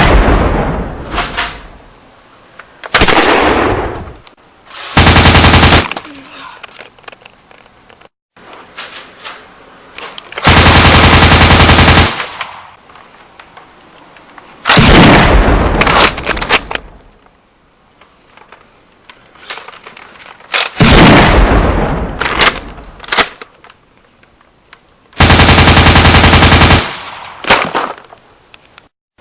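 Gunfire sound effects: long, loud bursts of rapid machine-gun fire alternating with single sudden blasts that die away, repeated several times with quieter gaps between.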